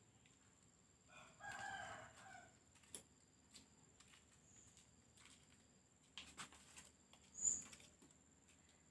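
A rooster crows once, faint and drawn-out, about a second in. Scattered clicks and knocks follow, the loudest a single sharp knock near the end.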